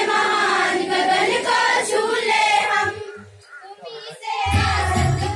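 A large group of schoolchildren singing a school prayer in unison, breaking off for about a second and a half near the middle, then starting the next line fuller.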